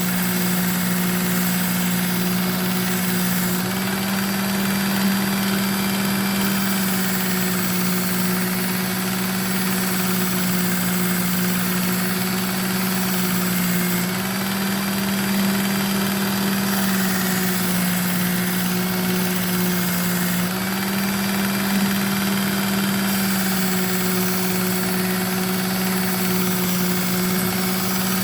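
Electric belt knife sharpener (Work Sharp Ken Onion Edition) running steadily with its abrasive belt hissing, the motor's hum stepping slightly up and down in pitch a few times.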